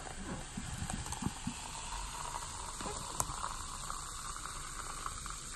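Dr Pepper soda pouring from a can into a plastic cup, the stream splashing in and the cola fizzing as a head of bubbles rises. A steady fizz.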